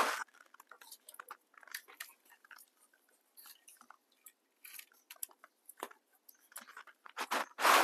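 Raw rice grains being dry-roasted in a hot pan: irregular small crackles and grainy rattling, with a louder scraping rustle right at the start and another near the end as the rice is stirred.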